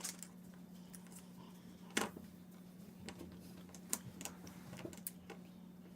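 Scattered light clicks and taps of plastic Play-Doh mold pieces being handled while dough is pressed in, the sharpest about two seconds in, over a faint steady hum.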